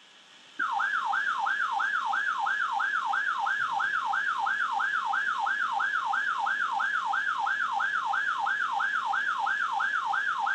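A weather alert radio's warning alarm: a loud warbling siren tone, sweeping up and down about two and a half times a second, starting about half a second in over a faint receiver hiss. It is the radio's alert for an incoming severe thunderstorm warning.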